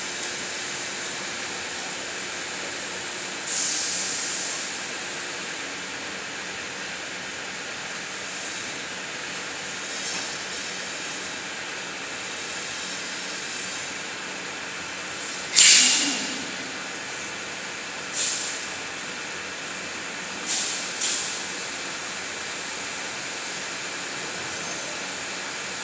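Windshield glass bending furnace line running with a steady hiss. Five sharp blasts of hissing air break in and fade quickly, the loudest about halfway through and a close pair later on, like pneumatic valves venting.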